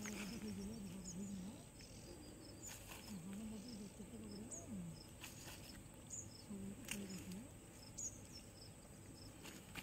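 Faint outdoor ambience: a low, distant voice rising and falling at times, small high chirps repeating about twice a second, and a few soft clicks and rustles as a tilapia is unhooked by hand.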